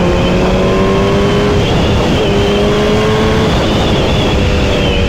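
Sport motorcycle engine running under way, its pitch slowly rising, with heavy wind rush over the microphone.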